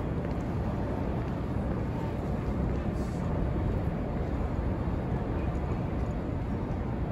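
Steady city street ambience: a low rumble of traffic and background noise.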